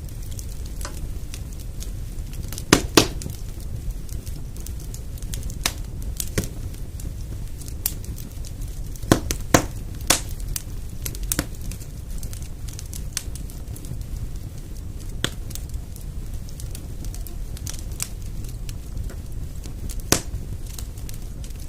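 Wood fire in a fireplace crackling, irregular sharp pops over a steady low rumble of the flames, with the loudest pops about 3, 9 to 10 and 20 seconds in.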